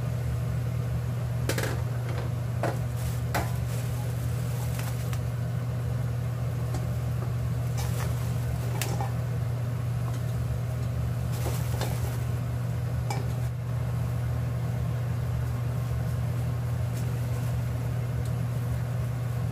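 A steady low mechanical hum, with scattered light clicks and taps as flour-coated peppers are picked out of a stainless steel mixing bowl.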